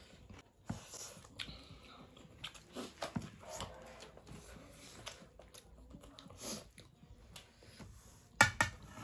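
Close-up eating sounds: chewing and lip smacking with scattered small clicks, and one louder sharp sound near the end.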